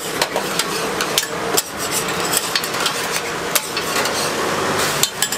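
A Taiwanese egg pancake (dan bing) sizzling in oil on a flat steel griddle. Over the sizzle come irregular sharp clicks and scrapes of a metal spatula and tongs against the griddle.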